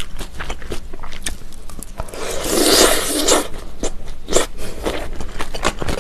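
Close-miked eating of mulhoe, cold raw-fish soup with vegetables, pear and thin noodles: many small crisp crunches and wet mouth clicks of chewing. About two seconds in comes a louder slurp of noodles that lasts about a second and a half.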